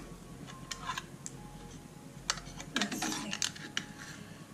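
Foil seal of a small craft jar being pierced and peeled back with a pointed tool: a few sharp clicks and crinkling scrapes of foil and tool against the jar rim.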